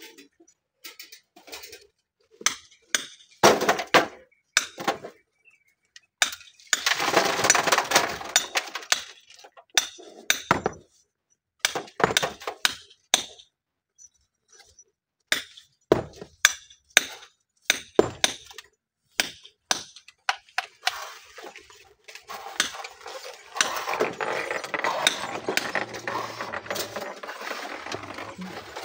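Rocks clinking and knocking against one another and against tools as landslide stones are loaded into steel wheelbarrows and pried from the rubble: a run of sharp separate impacts, with longer spells of scraping and rattling about a quarter of the way in and through the last few seconds.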